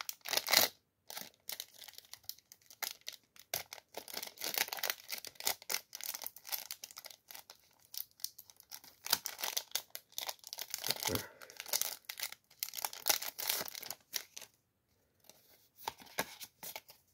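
Foil Yu-Gi-Oh booster pack wrapper crinkling and tearing as it is opened by hand, in a long run of sharp crackles. The crackling stops for about a second near the end, then a few faint rustles follow.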